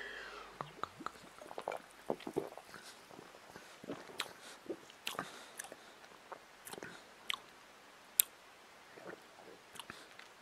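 A man sipping tonic water from a glass bottle and tasting it: faint swallowing, then scattered soft mouth clicks and lip smacks.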